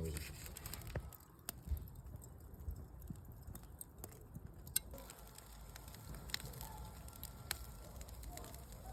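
Fire burning in a charcoal grill: newspaper and fuel catching with a low rumble and scattered sharp crackling pops.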